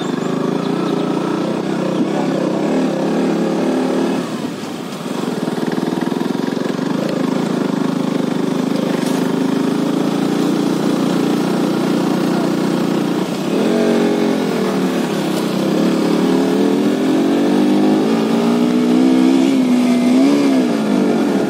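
KTM RC 125's single-cylinder 125 cc engine running under load on an uphill climb. Its note dips briefly about four seconds in, then rises and falls repeatedly with throttle and gear changes in the second half.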